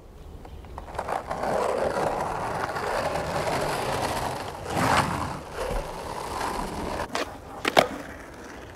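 Skateboard wheels rolling over asphalt with a steady gritty rumble. Near the end come a few sharp knocks of the board, the loudest just before it stops.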